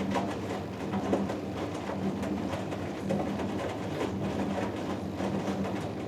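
Hoover Dynamic Next DXA610IW3 washing machine in its wash phase, the drum turning the laundry load with a motor hum that swells and eases, over scattered soft knocks and swishes.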